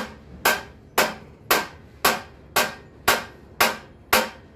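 Club hammer striking a new galvanised steel rear cross member in a steady rhythm of about two blows a second, each with a short metallic ring, driving it across into place on the chassis.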